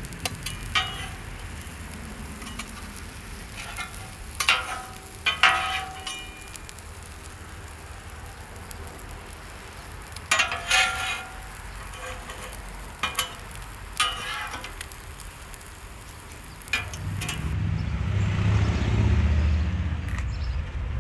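Food sizzling on a flat-top steel griddle, with metal spatulas scraping and clinking against the griddle surface several times. Near the end the sizzling gives way to a low rumble.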